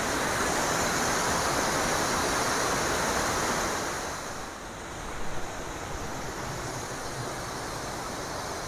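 River water pouring over a small weir, a steady rush of water. About four seconds in, it drops to a softer rush.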